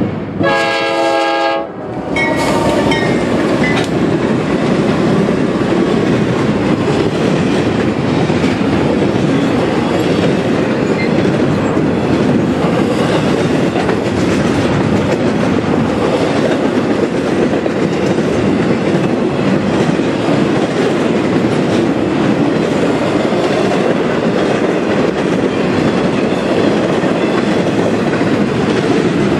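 Norfolk Southern diesel locomotive's air horn sounding a multi-tone chord blast at the crossing, cutting off a couple of seconds in with a short final toot. Then the locomotives and a long intermodal train of container and trailer cars rolling steadily past with wheel clatter.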